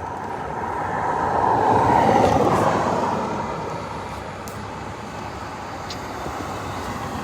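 A vehicle passing close by: a rushing rumble that swells to a peak about two seconds in, then fades away.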